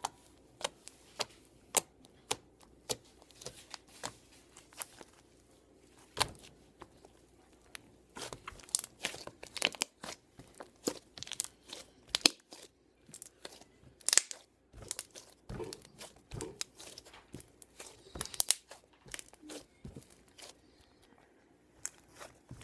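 Slime being handled, squished and pulled apart, giving irregular sticky clicks and crackling pops in scattered clusters.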